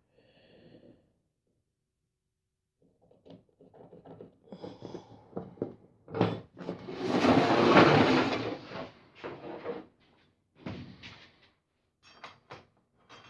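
Hand tools being handled while marking up a board: a run of light knocks and clicks, then a louder scraping rustle lasting about two seconds, then a few more scattered clicks.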